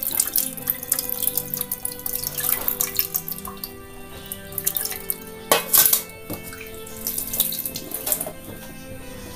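Tamarind water poured and squeezed by hand into an aluminium pressure cooker, splashing into the liquid already in the pot. It thins to a trickle and then to scattered drips, with a brief louder splash about halfway through.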